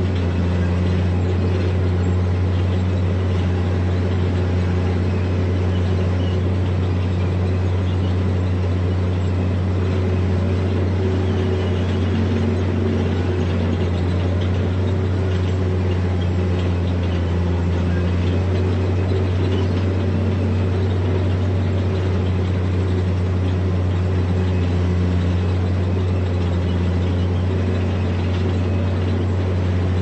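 Heavy diesel engine of earthmoving machinery running steadily, a constant deep drone with no change in revs.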